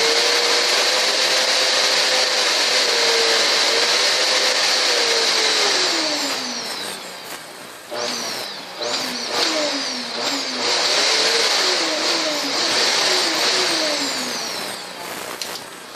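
Vacuum cleaner motor running with a steady high whine and rush of air, played to sound like a car engine. About six seconds in its pitch sinks, then it goes through a string of quick rises and falls, like an engine revving up through the gears.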